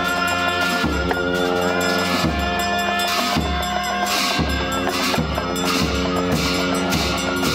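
Tibetan Buddhist ritual music: deep drum beats about once a second, some with cymbal crashes, under steady held chanting. A damaru hand drum is shaken and a drilbu bell is held alongside.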